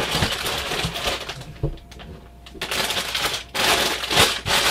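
Plastic bags of LEGO pieces rustling and crinkling as they are handled and lifted out of the cardboard set box, with a quieter stretch about two seconds in.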